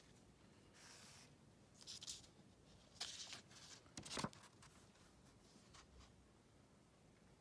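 Faint, brief rustles of a paper label card being handled, with the loudest one and a light knock just after four seconds, as a small cup of whipped cream is taken up.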